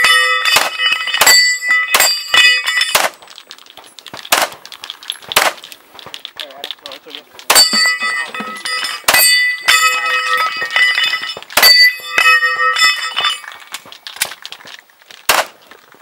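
Handgun shots fired in quick strings at a Texas star steel target, each hit on a steel plate ringing with a clang. A fast string opens, then a pause broken by a couple of lone shots with little ringing, then another fast string of shots and ringing hits from just before the middle until a few seconds before the end.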